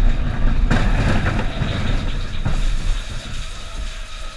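Mine train roller coaster car running along its track, a steady low rumble and rattle. A louder clatter starts just under a second in, and the sound gets quieter over the last second or so.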